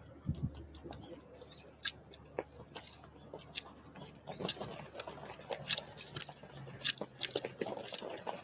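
Small wild birds pecking and cracking seeds at a feeder: irregular sharp taps and clicks, several a second.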